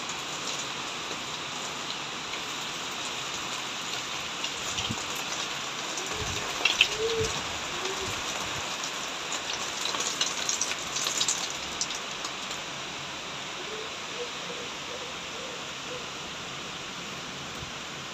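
Rain falling on trees and foliage, a steady hiss, with sharper drop hits pattering more densely between about six and twelve seconds in.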